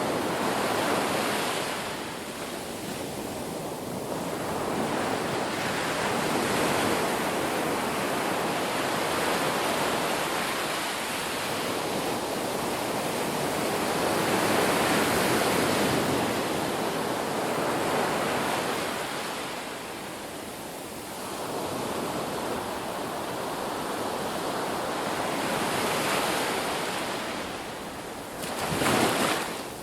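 Ocean waves breaking on a beach: continuous surf that swells and ebbs as each wave comes in, with a louder wave crashing near the end.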